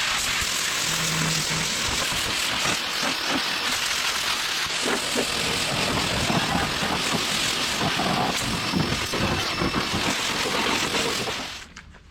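Water spraying hard and steadily against a car's body panels, a loud even hiss that cuts off suddenly near the end.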